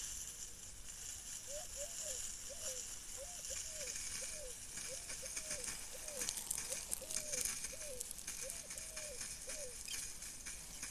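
A bird repeating short, low hooting notes, roughly two a second, in a series that stops a little before the end. A steady high hiss runs underneath.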